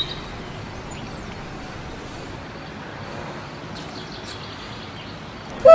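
Steady background hiss of an outdoor recording, with a few faint clicks about four seconds in and no clear animal call.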